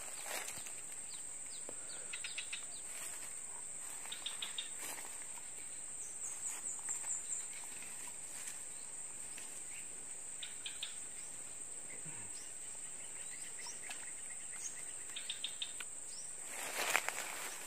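Steady high-pitched insect drone with short groups of quick bird chirps every few seconds, and a brief rustle near the end.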